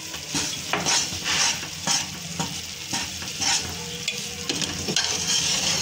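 Minced meat and tomatoes sizzling in hot oil in an aluminium pot, with short, sharp scrapes and taps against the pot, about two a second.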